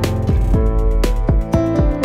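Background music with a steady beat of about two beats a second and deep bass notes that slide downward.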